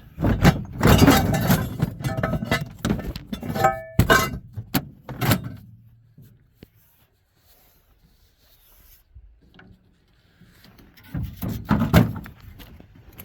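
Handling noise: irregular knocks, a clink and rustling for about five seconds, then a few seconds of near quiet, then more knocks and rustling near the end.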